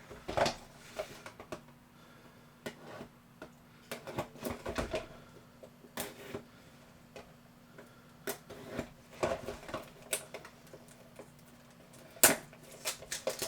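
Plastic packaging of a heat shrink tubing variety pack being opened and handled: irregular clicks, snaps and crinkles, with a sharp snap near the end.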